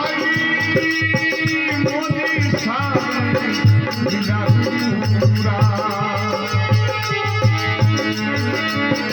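Instrumental passage of a devotional bhajan: held melody tones over a steady hand-drum beat, with shaken, rattling percussion.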